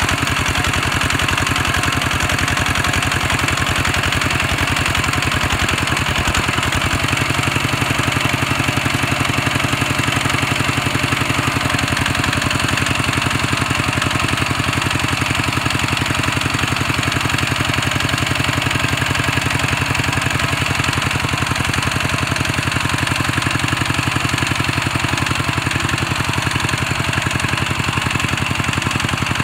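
Kubota walk-behind tractor's single-cylinder diesel engine running steadily with a fast, even chugging; its tone shifts slightly about seven seconds in.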